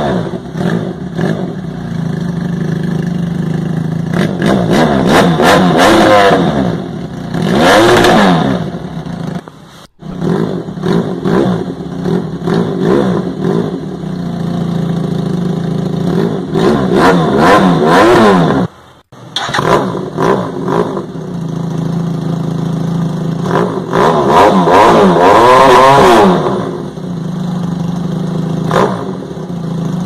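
Motorcycle engine idling and being revved several times through aftermarket universal slip-on mufflers, each rev rising and falling back to idle. The sound cuts out briefly twice as a different muffler is swapped in.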